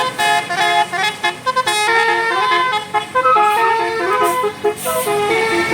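A bus's telolet Basuri musical horn playing a quick melody of short stepped notes.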